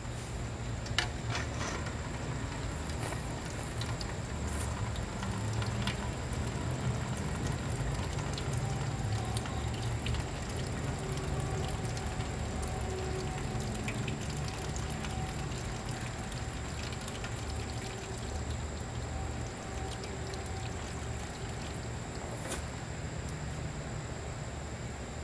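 Water draining in a thin stream from a flood-damaged Yamaha R6 engine's crankcase and splashing into a metal tin can, a sign of water in the engine. A few sharp clicks come near the start.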